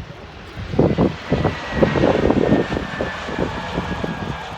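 Landing jet airliner's engines: a faint high whine, slowly falling in pitch, over an irregular rumble that grows louder about a second in.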